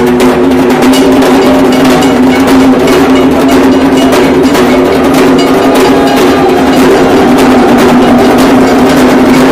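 Loud festival percussion: drums with fast, even metallic strikes of bells or gongs, over a steady droning tone, for Gajan devotees.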